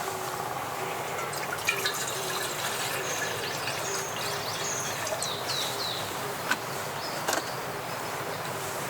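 Forest ambience: a steady rushing noise with a few short, high, falling bird chirps around the middle, and scattered light clicks.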